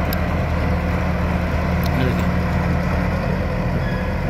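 Komatsu D50A-15 crawler bulldozer's diesel engine running steadily as the machine reverses.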